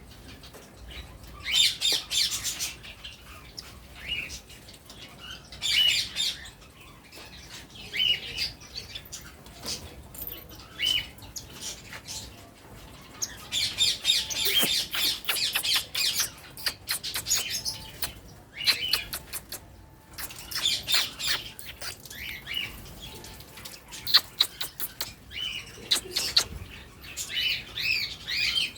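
Pet parrot squawking and chirping in short bursts every few seconds, with a longer run of calls about halfway through and again near the end, mixed with many sharp clicks.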